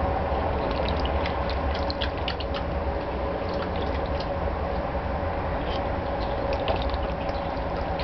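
Irish terrier splashing its muzzle in a plastic basin of water as it fishes for floating kibble: small water splashes and quick clicks in short bursts, over a steady low hum.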